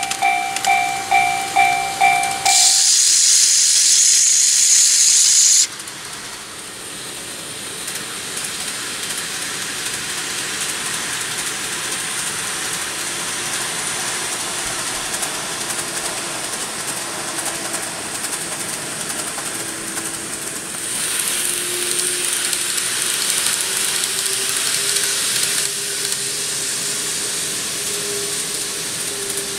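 A railway level-crossing bell dinging about twice a second, cut off about two and a half seconds in by a loud hiss that lasts about three seconds. Then steady train running noise with a faint hum that slowly rises in pitch, and a stretch of louder hiss near the end.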